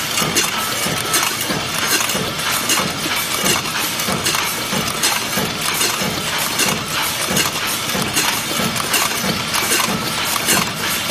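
Tinplate easy-open-end shell production line running: the shell press and the metal can-end shells rattling along the conveyor and into the stacking tubes make a steady, loud clatter of rapid metallic clinks and knocks over machine noise.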